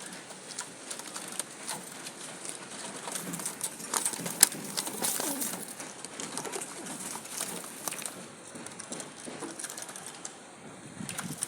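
Pigeons cooing in low falling calls, with scattered sharp clicks and rustling, the loudest click about four seconds in.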